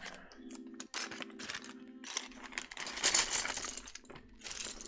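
Loose plastic keycaps clattering and clicking against each other, with a plastic bag crinkling, as they are rummaged through by hand. The busiest stretch comes around three seconds in.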